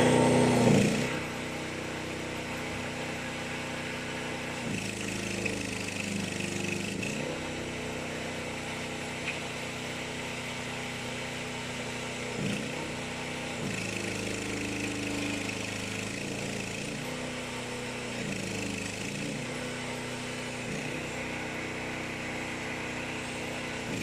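Small engine of a towable mini excavator running steadily, louder for about the first second. Its note dips and shifts briefly several times as the machine works.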